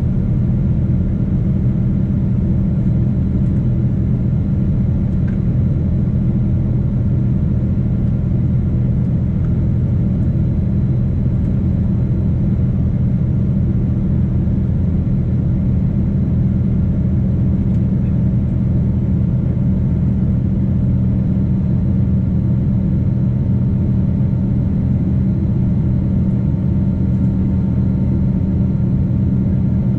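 Steady low drone of a Boeing 777-200's jet engines and airflow heard inside the cabin during the climb after takeoff, with a few even low hums under the rumble.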